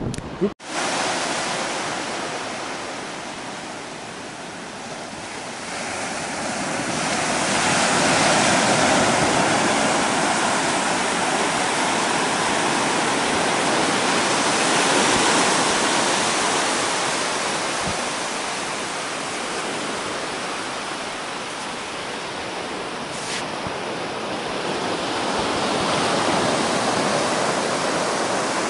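Low ocean surf breaking and washing up a flat sandy beach: a steady rush of waves that swells and eases several times.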